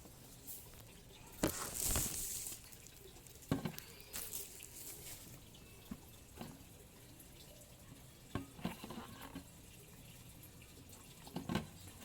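Scattered knocks and clicks of a plastic home air humidifier being handled, with a short burst of water splashing about two seconds in and drips, as the humidifier is filled and set up.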